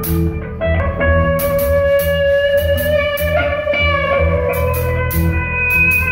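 Live rock band of electric guitar, bass guitar and drum kit playing an instrumental passage: held electric guitar notes over a low bass line, with regularly repeated cymbal hits.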